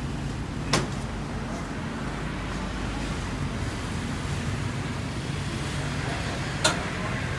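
Motor vehicle engine running with a steady low hum, with two short sharp clicks, one about a second in and one near the end.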